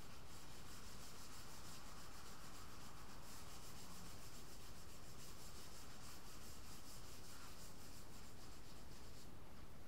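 Hand sanding of body filler on a car hood with sandpaper on a block: a steady scraping rub of repeated strokes that stops near the end.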